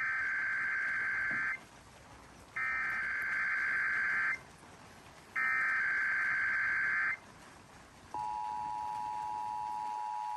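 Emergency Alert System tones for a required monthly test, heard over broadcast radio. First come three bursts of SAME header data tones, each about a second and a half long with a short gap between them. Then, for the last two seconds, the steady two-tone EAS attention signal at 853 and 960 Hz.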